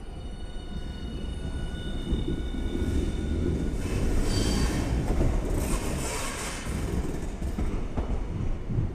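A Hiroshima Electric Railway (Hiroden) Miyajima Line tram passing close by: a low rumble of wheels on rail, with thin high steady tones for the first three seconds or so that then fade. The passing noise is loudest about four to six seconds in.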